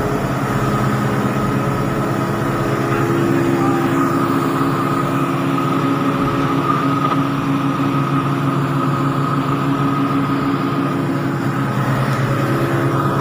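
Caterpillar 777D haul truck's V8 diesel engine running at a steady speed, heard from inside the cab.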